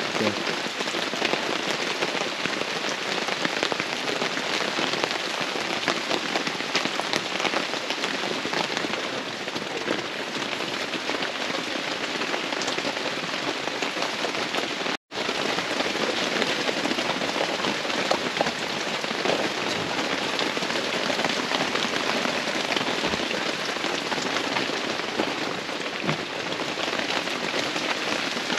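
Heavy rain and hail falling, a dense steady patter of countless small impacts. The sound cuts out for an instant about halfway through.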